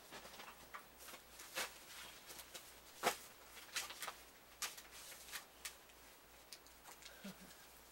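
Scattered light clicks and clatters of toy building pieces being handled and fitted onto a stacked ramp tower, with one sharper knock about three seconds in.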